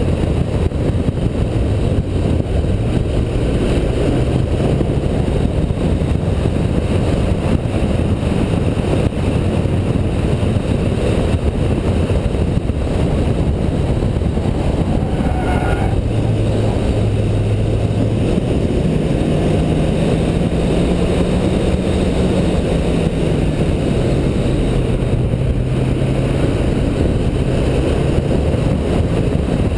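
Car engine running hard at speed, its note rising and falling, under a steady loud rush of wind and road noise.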